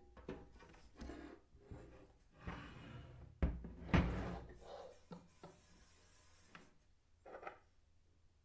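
Handling noises: objects knocked, set down and rubbed against one another, with two loudest thumps about three and a half and four seconds in and a smaller knock near the end.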